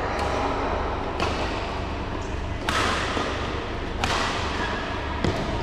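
Badminton rackets striking a shuttlecock in a doubles rally: about five sharp hits a second to a second and a half apart, each ringing on in a large hall. The loudest comes about four seconds in with a jump smash, over a steady low hum.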